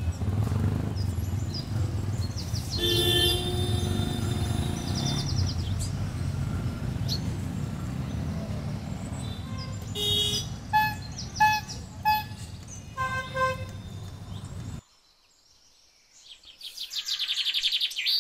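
Outdoor traffic ambience: a steady low rumble, with a vehicle horn sounding about three seconds in and short high calls or toots around ten to thirteen seconds. The background cuts off suddenly near fifteen seconds, and rapid high chirping follows near the end.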